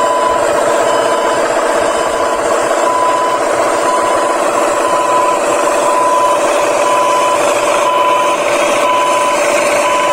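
Electric motors and plastic gearboxes of Huina radio-controlled model excavators and dump truck whining steadily while they work, with a short beep repeating about every 0.7 s.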